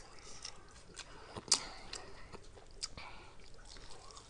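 Close-miked chewing of a mouthful of spicy noodles: soft wet mouth clicks and smacks at irregular intervals, the sharpest about a second and a half in.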